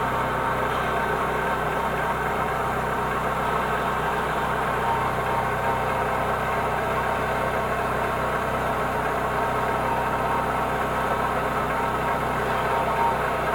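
Chevrolet Corsa 1.6 engine idling steadily, with a strange noise from its accessory belt drive that the owner cannot yet place; steady whining tones sit over the engine's hum.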